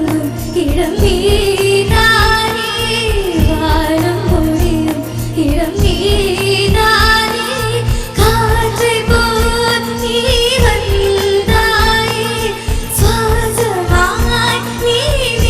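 A young girl singing an Indian film song over a band accompaniment, with held keyboard-like tones and a steady drum beat.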